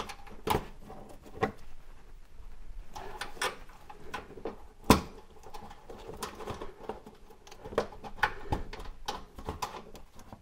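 Irregular small clicks and taps of a stainless steel hard brake line and its fitting being handled and lined up with the brake hose at the frame, with one sharper click about five seconds in.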